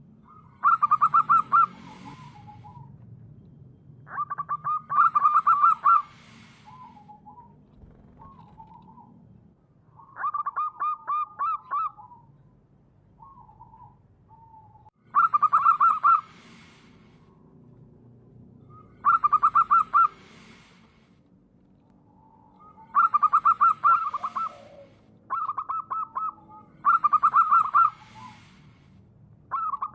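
Zebra dove singing: a fast, rattling series of coo notes about a second long, repeated about eight times at intervals of a few seconds, with soft short coos in between.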